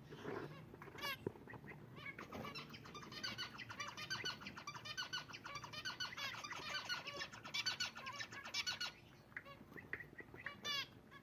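Zebra finches calling: a dense run of quick, high chirps that is thickest from about two to nine seconds in, with a few scattered calls before and after.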